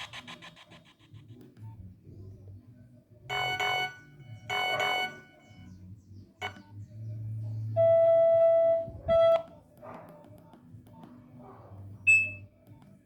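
Nokia 1110 phone's speaker playing short electronic tones: two brief notes a little over a second apart, then a longer held tone and a short one, with quiet gaps between them.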